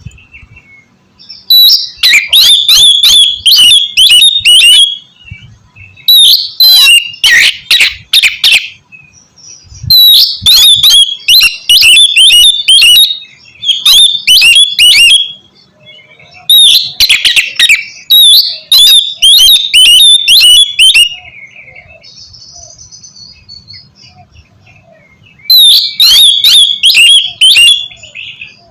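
Oriental magpie-robin (kacer) singing loudly in rapid bursts of quick, repeated high notes, each run lasting a few seconds, broken by short pauses.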